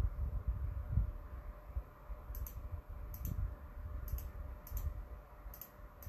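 Light clicking: a handful of quick double clicks, spaced roughly half a second to a second apart, starting about two seconds in, over a low uneven rumble.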